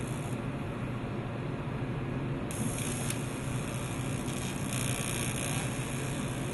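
AC TIG welding arc buzzing steadily on oil-impregnated cast aluminum, with a brighter hiss coming in about two and a half seconds in and again near the end.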